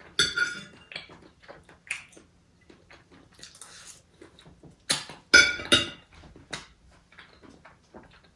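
Close-miked eating: chewing and wet mouth sounds with scattered clicks. There are two louder bursts, one just after the start and one about five seconds in.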